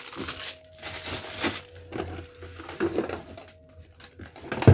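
Plastic wrapping crinkling and rustling as it is handled, then scattered handling knocks, with one sharp knock near the end.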